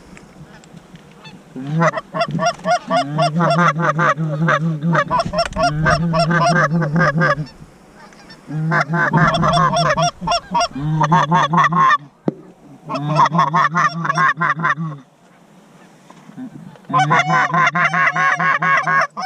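Goose honking and clucking in rapid runs of many short notes, coming in four long bouts with short pauses between them.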